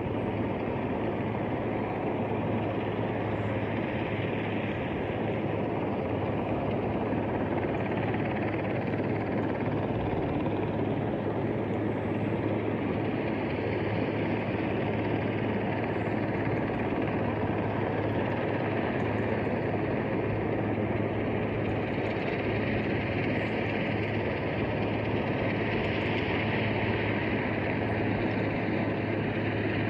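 Distant helicopter hovering, a steady rotor and engine drone that holds level throughout.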